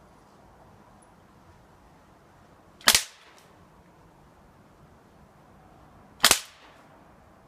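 Umarex XCP CO2 BB pistol firing two shots about three and a half seconds apart, each a sharp pop.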